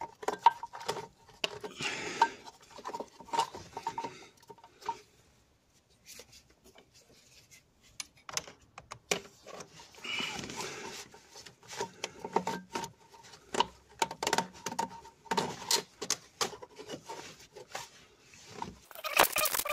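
Hands working plastic electrical connectors, hoses and wiring in a cramped engine bay: irregular clicks, rattles and short rubbing scrapes while the glow plug module's connectors are being unplugged, with a quick flurry of clicks near the end.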